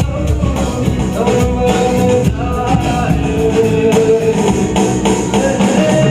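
Music: a voice singing long held notes over an instrumental backing.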